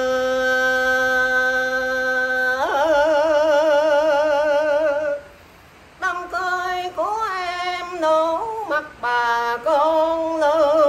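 An older man singing a Vietnamese song unaccompanied. He holds one long note that breaks into a wide vibrato, pauses briefly about five seconds in, then goes on with quick, ornamented phrases that bend up and down.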